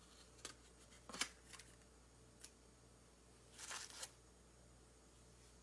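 Faint clicks and scrapes of wooden chopsticks against a styrofoam natto pack, a few single ticks with the loudest a little over a second in. A short noisy rustle follows near four seconds in, over near silence.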